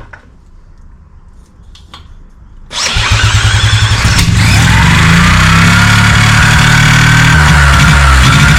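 Sachs KM48 rotary engine being spun over with a drill: the cranking stops, then after a pause of about three seconds it resumes, and the engine catches about four seconds in and runs on fresh premix, its revs rising and then easing off.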